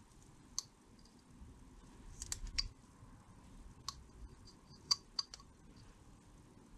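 Carving knife paring small cuts on a basswood ball, with scattered sharp clicks as the blade snaps through the wood, a quick cluster of them a little over two seconds in.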